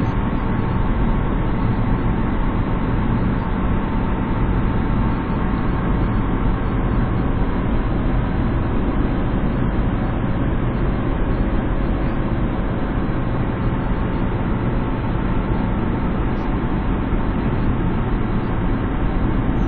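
Steady engine and tyre noise heard inside a car's cabin as it drives up a snow-covered road.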